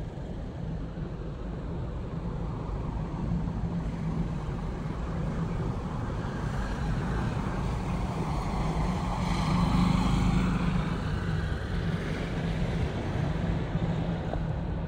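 Airplane passing overhead: a rushing rumble over a low steady hum that swells to its loudest about ten seconds in, then eases slightly.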